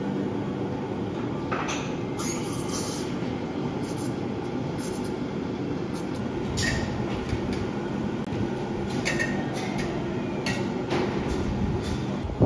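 Café room sound: a steady low machine hum with a few short hisses and light clinks from work at the espresso counter.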